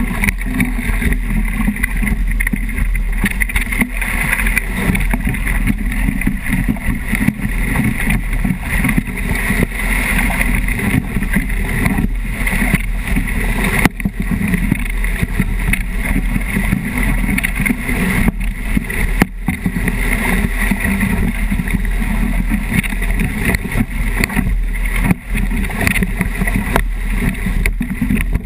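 Steady, loud rush of wind on the microphone and water streaming past the hull of a 29erXX skiff sailing fast in about 30 knots of wind, with spray splashing over the camera. A few short knocks break through now and then.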